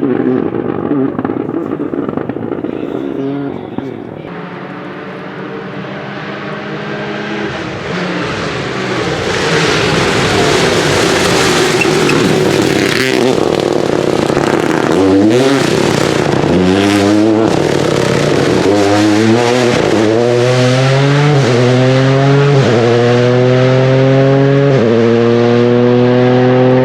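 Rally car engine at full throttle: a loud noisy pass with sharp crackles, then the engine accelerating hard, its pitch climbing and dropping back at each quick upshift, about every one and a half to two seconds.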